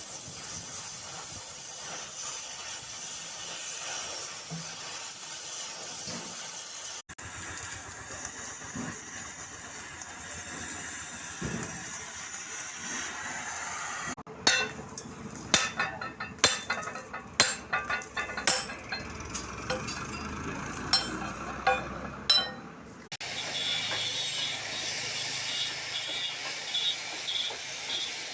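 Oxy-fuel gas cutting torch hissing steadily. Partway through, a stretch of sharp, irregular metallic clinks and knocks breaks in, then the steady hiss returns.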